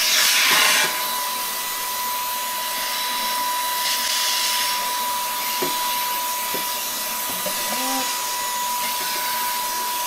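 Greenote GSC50 cordless stick vacuum cleaner running with its crevice tool on the extension tube: a steady motor whine over a rushing hiss of air. The rush of air swells briefly at the very start and again about four seconds in.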